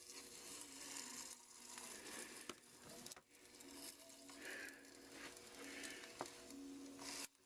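Faint handling of small metal steering-valve parts: a few light clicks and scuffs over a low steady hiss.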